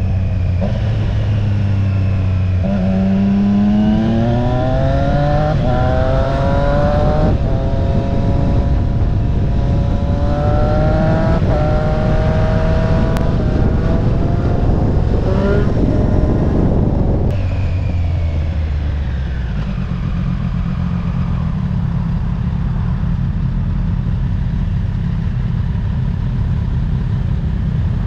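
Triumph Street Triple RS's three-cylinder engine accelerating through the gears, its pitch climbing and dropping back with each upshift, then falling away as the throttle is rolled off and settling to a steady lower cruise, with wind noise throughout.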